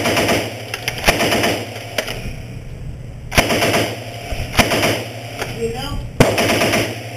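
MP40 9mm submachine gun firing: about six sharp reports or short bursts roughly a second apart, each followed by echo.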